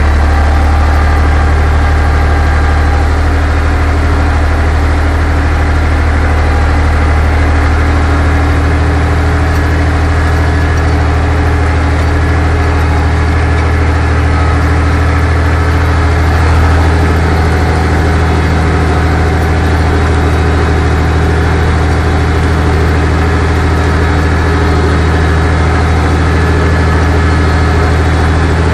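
Torpedo 45 tractor's diesel engine running steadily under load, a low, even drone as it pulls a two-furrow plough through dry ground in fourth low gear.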